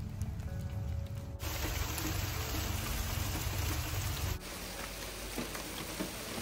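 Steady rain, an even hiss of falling drops with scattered single drop ticks, starting suddenly about a second in. Under it, background music with a low beat runs on and stops about four seconds in.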